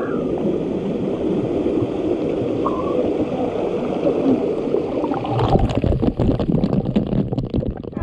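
Waterfall water rushing and gurgling steadily, its sound sitting low and dense. Near the end comes a rapid run of sharp, short sounds.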